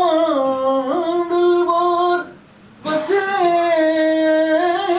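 A single voice singing Punjabi verse in slow, drawn-out notes: sung recitation of poetry. There are two long phrases, with a brief breath between them about two and a half seconds in.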